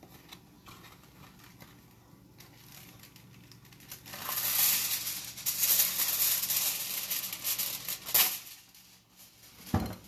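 Aluminum foil being pulled from its box, loudly crinkling for several seconds, then torn off against the box's cutting edge with one sharp rip about eight seconds in.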